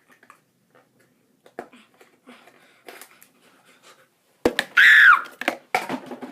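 Faint rustles and small clicks of handling, then, about four and a half seconds in, a short high-pitched vocal squeal that falls in pitch, followed by a few brief voice sounds.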